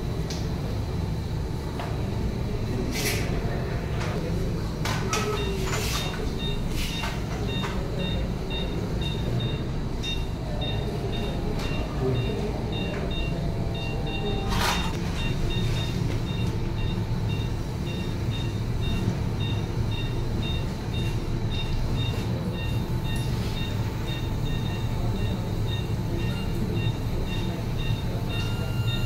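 Operating-theatre equipment making a steady low rumble, with a patient monitor beeping at an even pace from about five seconds in. A few sharp clicks of surgical instruments come in the first half.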